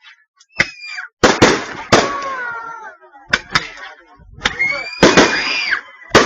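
Fireworks and firecrackers going off: a quick, irregular string of sharp bangs, with high tones gliding down in pitch between them.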